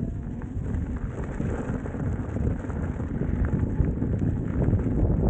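Wind buffeting the camera's microphone as an electric unicycle is ridden uphill, a dense rumble with crackling that grows slightly louder.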